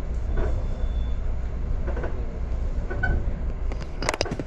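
Cabin noise of a JR 115 series electric train running: a steady low rumble of wheels and running gear, with a quick run of sharp clacks near the end.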